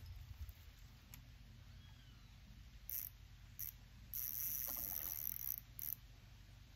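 Spinning reel's drag buzzing in short high-pitched bursts as a hard-fighting fish pulls line against it, with the drag tightened: two brief buzzes, then a longer one of over a second about four seconds in, then one more short buzz.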